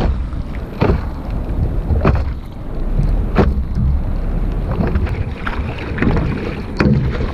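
Water splashing around a stand-up paddleboard in short repeated splashes, the clearest coming about every second and a half, over wind rumbling on the microphone.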